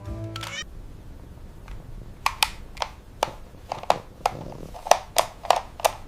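A run of short, sharp clicks and taps, about two a second, from tools working on a toy during a repair.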